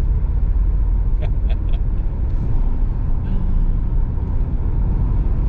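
Steady low rumble of a vehicle driving along the road, heard from inside the cab, with a few faint short ticks a little over a second in.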